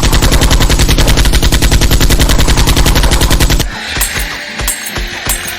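Rapid automatic gunfire sound effect: one fast, unbroken burst that stops about three and a half seconds in. It gives way to background music with a steady beat.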